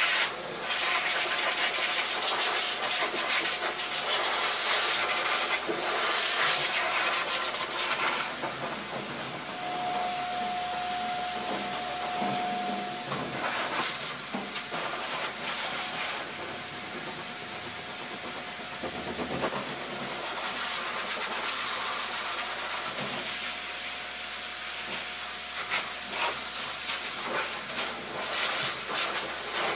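Pet blow dryer running, blowing a steady rushing hiss of air through its hose onto a wet dog's coat. A thin steady whistle joins it for about three seconds near the middle.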